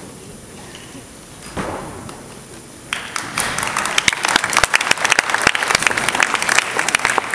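Audience applauding, breaking out suddenly about three seconds in as a dense run of many claps.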